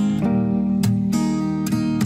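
Background music: acoustic guitar strumming chords, a strum a little under every second.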